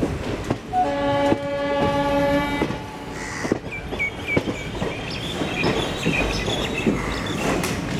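Indian express train running out of a station, its coach wheels knocking over rail joints and points, while a train horn sounds once for about two seconds, about a second in. Brief high-pitched squeals follow in the second half.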